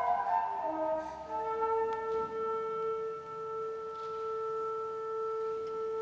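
Woodwind quintet playing contemporary chamber music. A descending run of short notes gives way, a little over a second in, to one long held tone.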